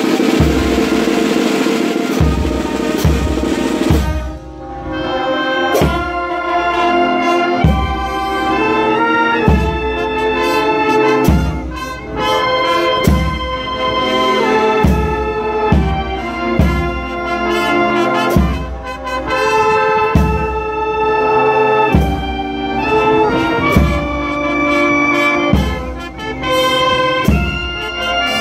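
Brass-and-reed marching band (trumpets, flugelhorns, saxophones, clarinets and sousaphone) playing a march over a steady drum beat of roughly one stroke a second. The opening few seconds are a dense wash of drums and cymbals before the winds come in clearly about four seconds in.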